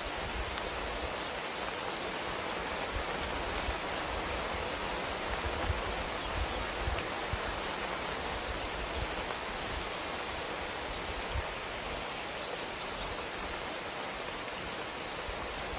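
Steady rain falling as a continuous even hiss, with a few slightly louder moments.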